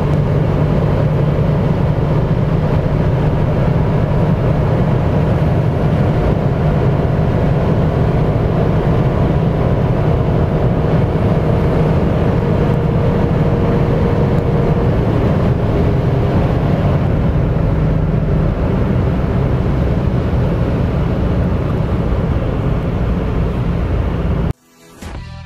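Inside the cabin of a 2018 Mitsubishi Space Star 1.2 held at its top speed of about 180 km/h, its three-cylinder engine drones steadily near 6,000 rpm over wind and wet-road tyre noise. The sound cuts off suddenly near the end.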